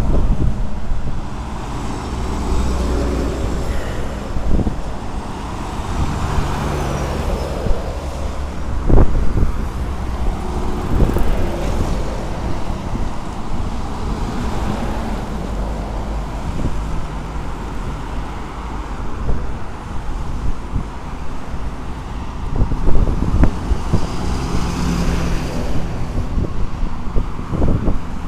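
Cars and trucks driving past on a multi-lane expressway: steady traffic noise with tyre and engine sound swelling as vehicles pass, loudest about nine seconds in and again near twenty-three seconds.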